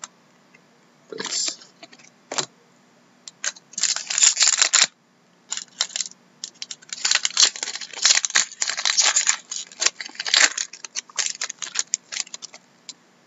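Foil wrapper of a hockey card pack crinkling and tearing open, then the cards inside slid and flicked through by hand. It comes as a run of crackly rustles and light clicks, heaviest about four seconds in and again from about seven to eleven seconds.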